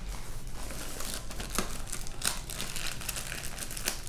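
Clear plastic wrap crinkling around a rolled diamond-painting canvas as the roll is handled, a run of irregular crackles.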